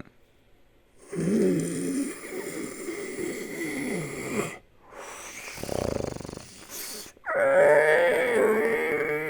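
Monster sound effects of creature vocalizations: after about a second of silence, a drawn-out growling call with a wavering pitch, a short breathy burst, then a louder pitched call starting about seven seconds in.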